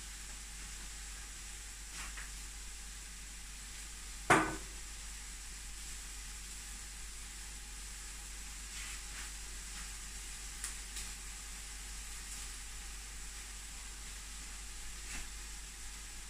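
Oil sizzling steadily in a stainless steel pot on the stove, with one loud clank about four seconds in and a few faint clicks.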